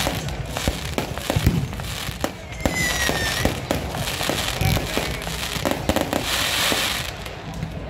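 Aerial fireworks bursting overhead: a rapid string of sharp bangs and crackles, with a brief falling whistle about three seconds in and a rush of hissing crackle near the end.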